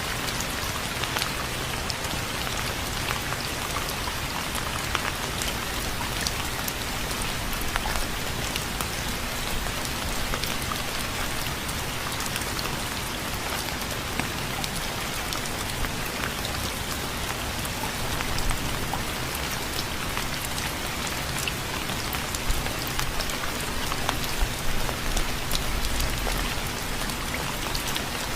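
Steady rain falling, an even hiss with many small drop ticks striking a surface.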